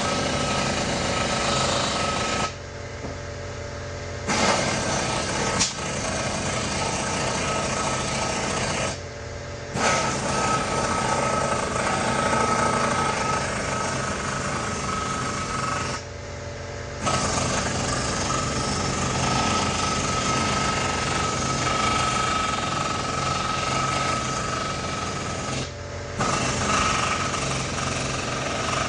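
Pneumatic impact wrench hammering in long runs of several seconds on the bolts at the leaf-spring saddle, pausing briefly about four times.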